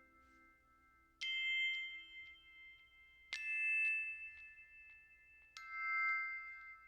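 Background music: three struck, bell-like chords about two seconds apart, each ringing on and fading away.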